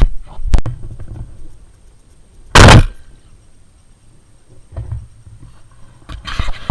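A single shotgun shot about two and a half seconds in, loud and brief, with a sharp click about half a second in.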